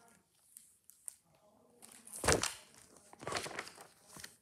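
Pages of a large hardcover picture book rustling as the book is handled and a page turned, with a soft bump about two seconds in.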